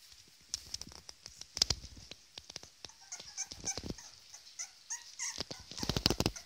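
A litter of two-and-a-half-week-old puppies whimpering in short high squeaks, with scratching and scuffling as they crawl over a fleece rug. A burst of louder scuffling near the end.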